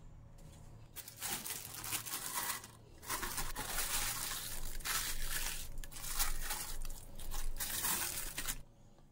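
Clear plastic bag rustling and crinkling as it is handled, starting about a second in, with a brief pause around three seconds, and stopping shortly before the end.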